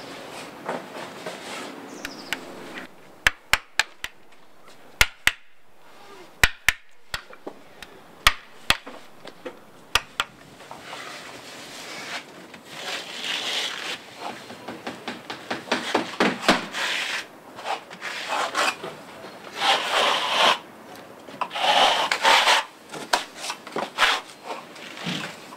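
Hand tools at work: a run of sharp, separate taps over several seconds, then repeated scraping and rubbing strokes that come in bursts.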